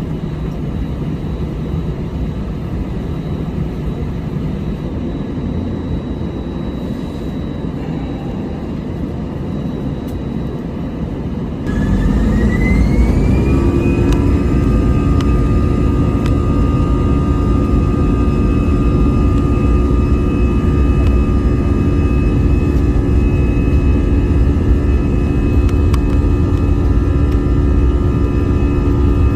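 Airbus A320 jet engines heard from inside the cabin. A steady hum at first, then about twelve seconds in the engines spool up to takeoff thrust: the noise jumps louder and a whine rises in pitch, then settles into steady tones over a deep rumble.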